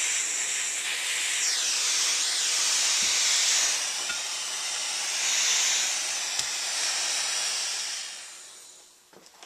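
Gas torch flame hissing steadily while it heats a spent rifle-casing lug to flow solder onto a cable, then dying away near the end.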